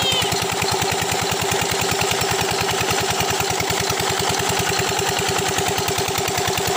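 Engine of a stationary borewell water pump set running steadily, an even fast chugging of about ten beats a second.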